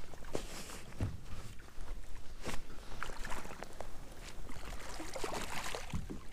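Irregular knocks, taps and rustling from movement and handling gear in a fishing kayak, with a few heavier thumps on the hull.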